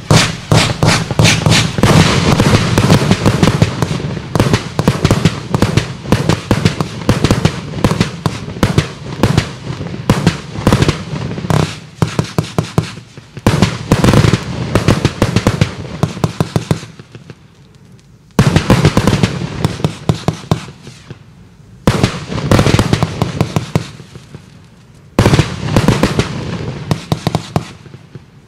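A 100-shot compound fireworks cake firing: fast volleys of launch thumps and crackling bursts in the air, with short lulls about two-thirds of the way through and again near the end.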